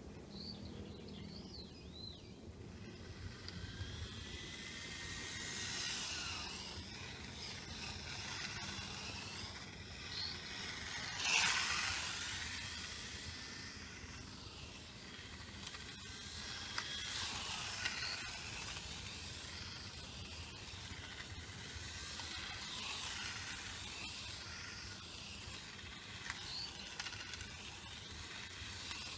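WLtoys K989 mini RC car running on asphalt and passing the camera several times: the high electric motor whine and tyre hiss rise and fade with each pass, loudest about 11 seconds in.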